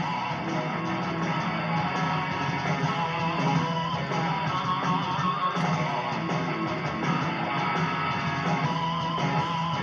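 Live rock band music, with electric guitar to the fore over bass.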